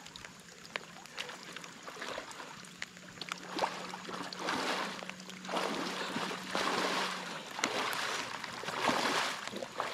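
A person wading through knee- to waist-deep river water, each stride pushing a swish of water, the strides getting louder as the wader comes closer.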